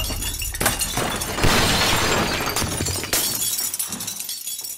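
Many glass liquor bottles shattering and clattering as a body smashes through the bar's shelves: a run of crashes with tinkling glass that dies away toward the end.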